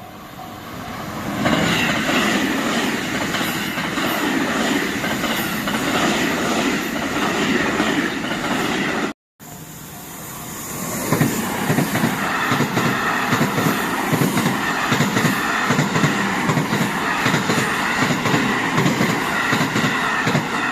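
Two trains passing over a level crossing, one after the other with a cut between them about nine seconds in: steady rail noise, then a fast, even clatter of wheels over the rail joints, with the crossing's warning bell ringing throughout.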